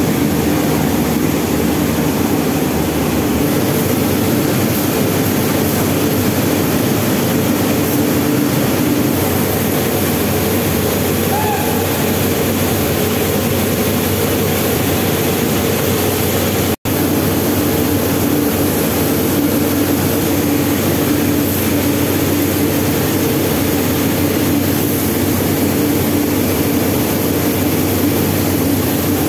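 Rice mill machinery running steadily: electric motors and belt-driven paddy-cleaning machines giving a loud, continuous mechanical hum. The sound drops out for an instant partway through.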